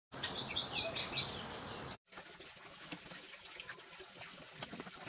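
A bird gives a quick run of about six high, falling chirps over a steady hiss of forest ambience. About two seconds in, the sound cuts abruptly to a quieter outdoor background with faint scattered clicks and knocks.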